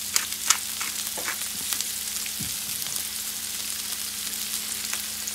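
Red bell pepper strips sizzling in hot olive oil in a skillet on medium-high heat, a steady hiss with scattered crackles and pops, loudest in the first second.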